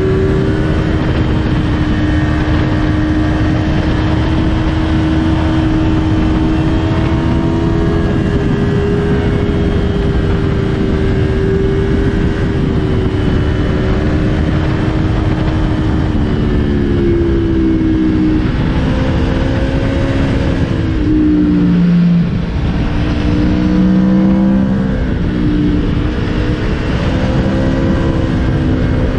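Aprilia Tuono V4's V4 engine running under way, heard from the bike over wind rush. It holds a steady note for about the first half, then the pitch drops and climbs again several times as the revs change.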